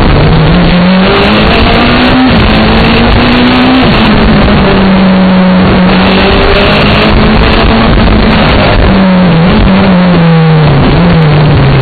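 Car engine driven hard at speed, its pitch climbing and then dropping with each gear change several times, over a constant loud rush of road noise.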